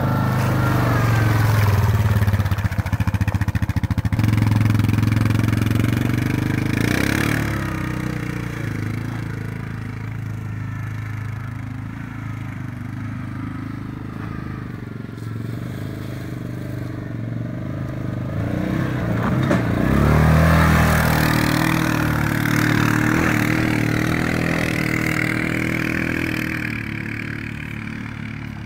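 ATV engine running as the four-wheeler passes close by, then fading as it moves off. It grows louder again about two-thirds of the way through and fades near the end, its pitch rising and falling with the throttle.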